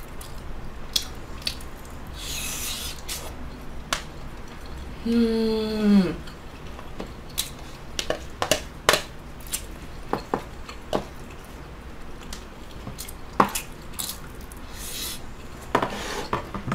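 Close-up eating sounds: a metal spoon clicking and scraping in a plastic container of rice, with chewing and wet mouth noises. About five seconds in comes the loudest sound, a short vocal sound about a second long that falls in pitch.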